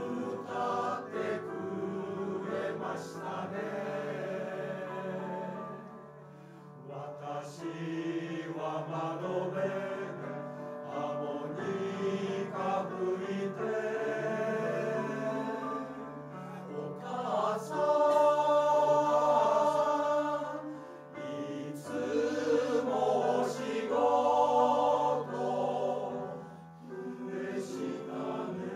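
Men's choir singing in parts, sustained phrases with short breaths between them, swelling louder past the middle and again near the end.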